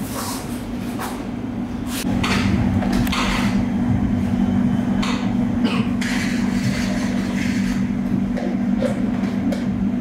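A steady machine hum that gets louder about two seconds in, with short rustling noises on top.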